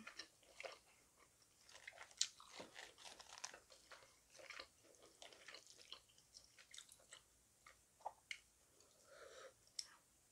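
Faint, close chewing of spicy cold noodles (Songju bul naengmyeon) and soft beef cheek meat: irregular wet clicks and crackles of the mouth, with a few sharper clicks.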